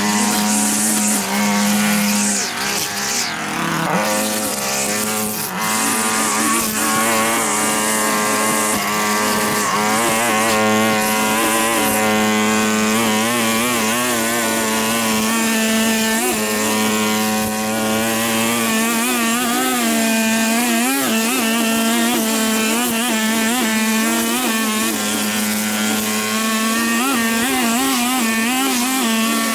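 Small petrol engine of lawn-care equipment running continuously, a steady hum with higher tones that waver in pitch. It dips briefly about three to four seconds in.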